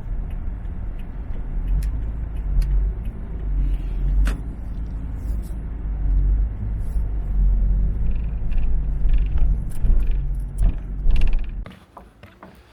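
A vehicle driving: a steady low road rumble with a few small clicks and knocks, ending abruptly near the end.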